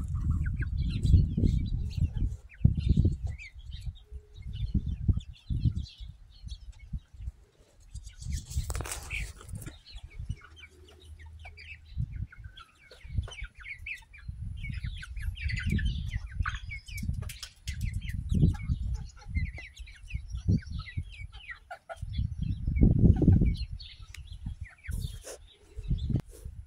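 Chickens foraging, with many short chirping and clucking notes. Repeated low rumbling bursts of noise on the microphone are louder than the birds.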